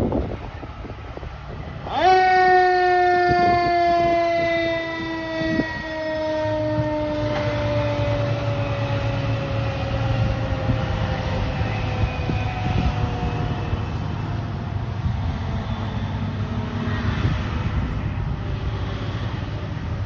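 Fire truck siren that comes on abruptly about two seconds in, loudest for a few seconds, then slowly winds down in pitch over the next ten seconds, like a mechanical siren coasting down. The ladder truck's engine rumbles underneath.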